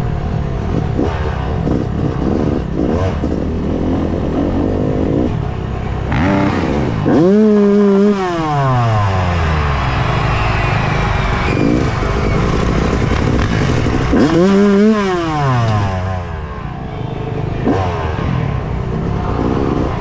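Dirt bike engine running close up, revving hard twice, about seven and again about fourteen seconds in. Each time the pitch climbs fast, holds briefly at high revs, then falls away as the throttle closes. In between it runs at lower, uneven revs.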